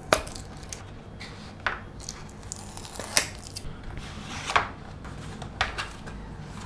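Cardboard packaging being opened by hand: a card sleeve slid off an inner box, with several scrapes and light taps of card and the inner tray against a table.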